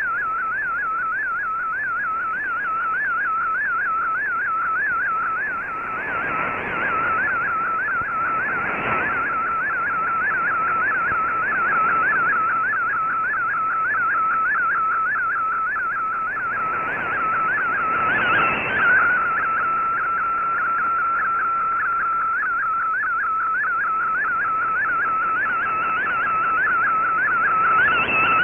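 Shortwave receiver audio of a Fldigi MFSK picture transmission from the Shortwave Radiogram broadcast on 15770 kHz: a single tone warbling rapidly up and down around 1.5 kHz as it carries the image line by line, over shortwave hiss. The tone holds nearly steady for a few seconds past the middle.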